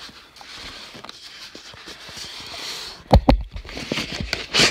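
Cardboard and paper rustling and scraping as a shipping box is unpacked by hand. About three seconds in come several loud knocks and thuds as the box and camera are handled, then more rustling.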